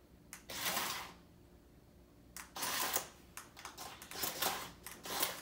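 Small toy RC car clattering through plastic track tubes: a brief rattle about half a second in, then a run of quick rattling clicks from about two and a half seconds on.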